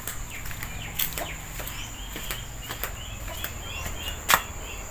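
Outdoor rural ambience: small birds chirping in quick short calls over a steady high-pitched whine, with a sharp click about a second in and a louder one near the end.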